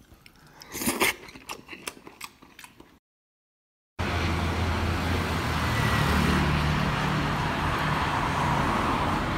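A few sharp clicks and knocks of utensils at a soup bowl, the loudest about a second in. After a second of dead silence, steady city street traffic follows, with the low hum of an idling engine.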